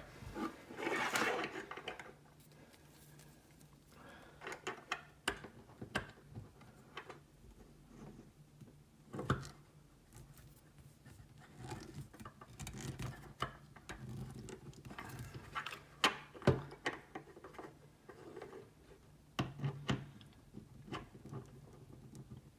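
Ear clamp pliers and a metal ear clamp being handled while the clamp is fitted and crimped. Light clicks, taps and small rattles come at irregular intervals, with a brief rustle about a second in.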